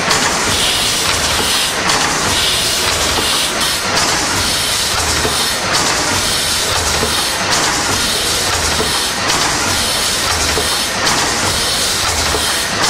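Bratch steam engine running steadily: a continuous hiss of steam with mechanical clatter that pulses in a regular beat about once a second.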